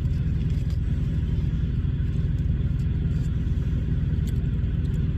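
Steady low drone of a vehicle's engine and road noise, heard from inside the vehicle, with no change in pitch or level.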